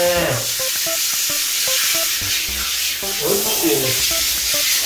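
Handheld shower head spraying water onto a kitten's wet fur and the bathtub: a steady hiss of running spray.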